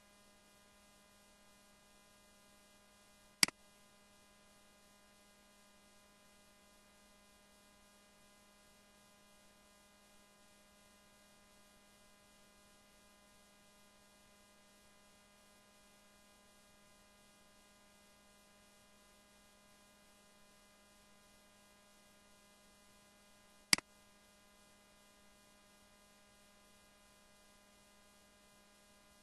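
Steady electrical mains hum from the recording setup, broken twice by a sharp computer-mouse click about twenty seconds apart as cells are selected.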